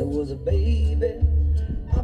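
A song with male singing playing loud through a truck's stereo, with heavy bass from JL Audio 15-inch W0v3 subwoofers.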